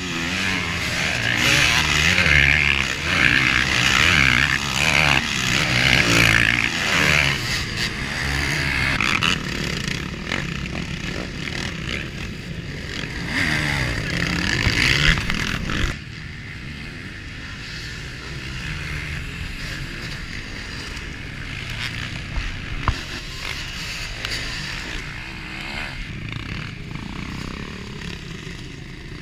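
Motocross bikes racing past, their engines revving up and falling away in pitch over and over. About sixteen seconds in the sound cuts off abruptly to a quieter stretch where the engines sound further off.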